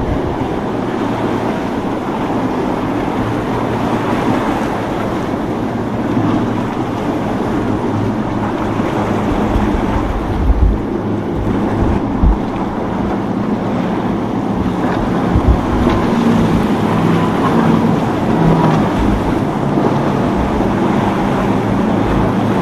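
Boat engines running through a rough inlet over the wash of surf, with wind buffeting the microphone. A steadier engine tone comes up in the second half.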